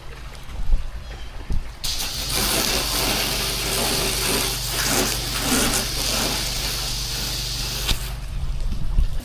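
A pressure-washing rig's engine runs steadily. About two seconds in, a high-pressure water spray starts hissing, and it stops about a second before the end.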